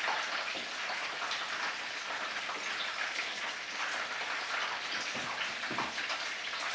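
Battered chicken pieces frying in hot oil: a steady sizzle with fine crackling.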